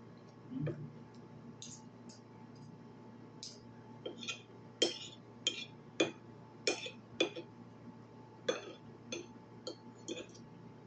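Cutlery clinking against a dish while eating: about a dozen sharp, irregular clinks starting about four seconds in, after a single soft low thump near the start.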